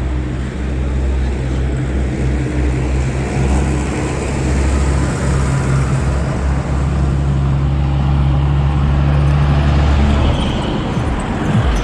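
A heavy road vehicle's engine running close by: a loud, steady low hum that falls away about ten seconds in, over road traffic noise.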